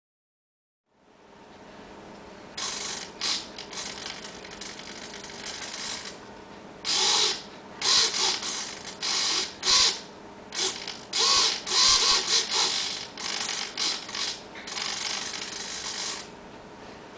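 Miniature RC servo's motor and gear train whirring in many short bursts, each burst the servo driving to a new position as the NE555 control pulse is changed by turning a potentiometer. The bursts begin a couple of seconds in, come thickest in the middle and stop shortly before the end.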